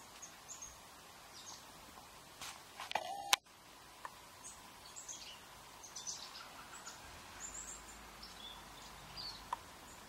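Small birds giving short, high chirps scattered throughout, over a faint steady outdoor hiss. A little before three and a half seconds in, a brief loud noisy burst cuts off abruptly.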